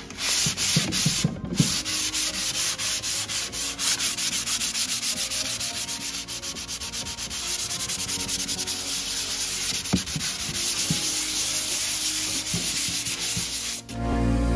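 Hand sanding with a small piece of 220-grit sandpaper over wood-filler patches on an old wooden tabletop finish: fast, even back-and-forth strokes, stopping just before the end.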